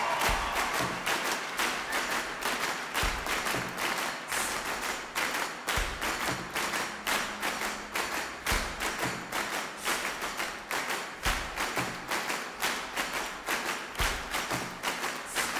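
Audience and orchestra clapping along in a steady rhythm, with a deep thump about every three seconds.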